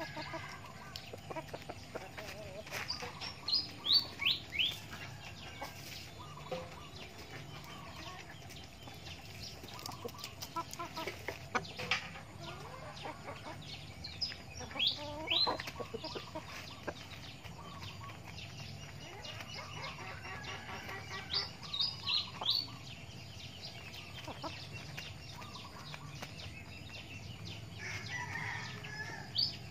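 Backyard chickens, a rooster and hens, clucking while they peck at grain. A songbird calls several times in quick runs of short, high, falling notes.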